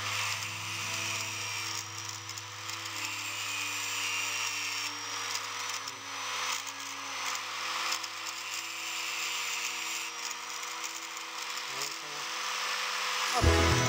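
Electric angle grinder running, with a small steel pin held against its spinning disc and ground flat at the end.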